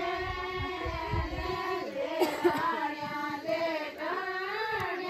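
High-pitched female singing of a folk melody, with long drawn-out notes that bend up and down.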